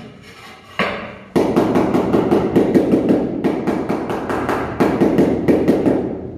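A tiling mallet tapping a large ceramic floor tile down into fresh adhesive, bedding and levelling it. One strike just before a second in, then rapid repeated knocks, about four or five a second, for some five seconds.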